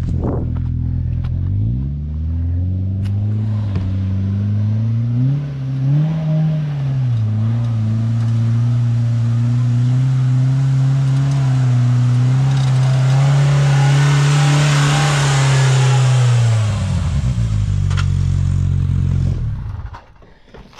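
Off-road vehicle engine revving up about two seconds in and pulling at steady high revs under load, with a brief surge around six seconds, over rushing, clattering noise from the trail. The revs drop back about seventeen seconds in, and the sound falls away sharply near the end.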